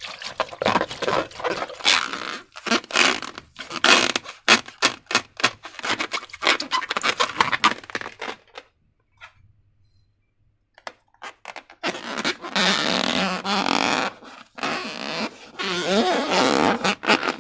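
Slime being squeezed and stretched by hand, giving many short wet, crackling squelches. After a pause of about three seconds it resumes louder and more continuous, with air being pushed out of the slime in fart-like squelches and a brief wavering squeak.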